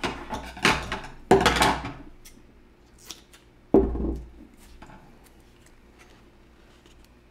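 Duct tape pulled off the roll in two long rips, then a dull bump from handling about four seconds in. After that come faint small clicks and rustles as the tape is cut and pressed inside a motorcycle helmet shell.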